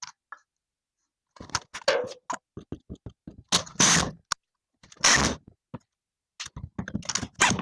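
Pencil marking lines on a wooden board: irregular short scratching strokes, with a few light knocks from handling the wood.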